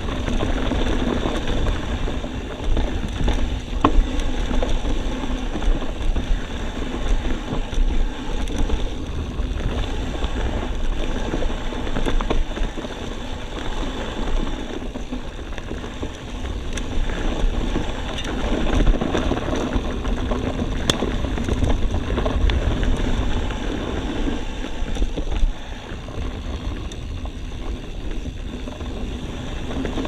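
Steady rush of wind and rolling trail noise on a rider-carried camera during a trail ride, with scattered small clicks and knocks.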